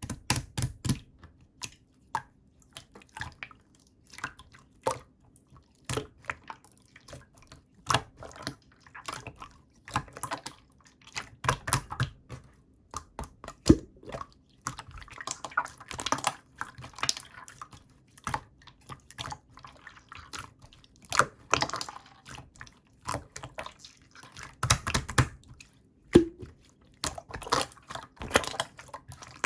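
Close-miked chewing of chewy clear jelly: an irregular stream of short wet mouth clicks and smacks, with a few heavier bites.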